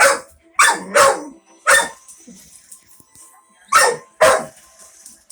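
A dog barking: four quick barks, then a pause, then two more barks.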